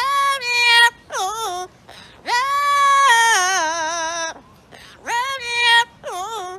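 Parrot singing in high-pitched, swooping notes. It gives a few short rising-and-falling phrases, then holds one long note for about two seconds that breaks into a quavering wobble, then two more short swoops near the end.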